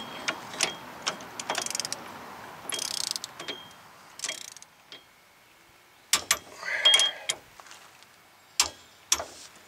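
Metal hand-tool sounds from a torque wrench being worked on the hub bearing mounting bolts: a short spell of rattling, ratchet-like clicking, then a few separate sharp metallic clicks.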